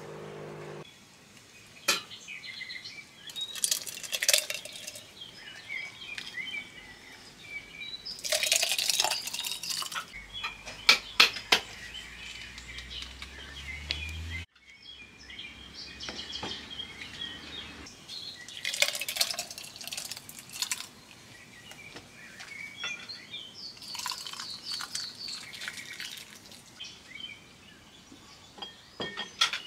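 Scattered clinks and knocks of kitchen utensils and dishes, several sharp ones around the middle, with birds chirping in the background.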